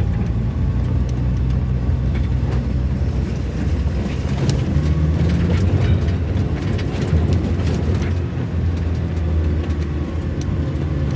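Car engine running steadily, heard from inside the cabin while the car drives up a rough, steep road, with scattered knocks and rattles from the bumps.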